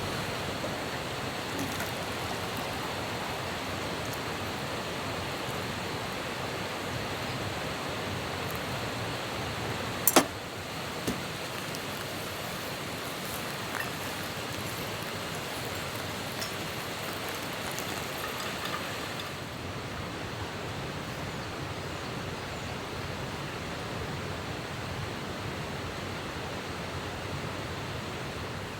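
Steady rushing noise with no pitch, with a sharp click about ten seconds in and a fainter one a second later.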